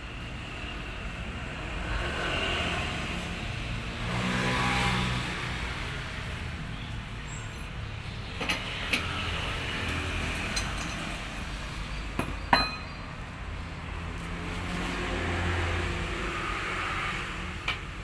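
Steady low rumble of motor vehicle engines, swelling about four seconds in, with a few sharp metallic clinks of hand tools working on a bus wheel, the loudest about twelve and a half seconds in.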